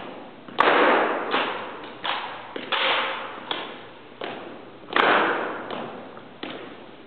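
Sharp slaps of hands on drill rifles and stamps of drill shoes during a rifle drill routine, about eight crisp impacts, the loudest about half a second and five seconds in, each echoing in a large hall.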